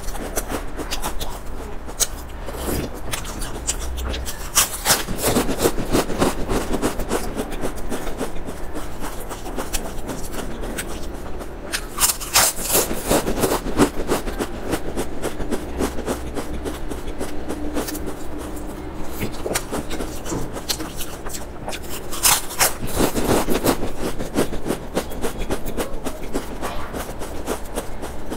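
Close-miked chewing of stacked potato crisps: a dense, steady crackle of small crunches, swelling into louder bouts of crunching three times.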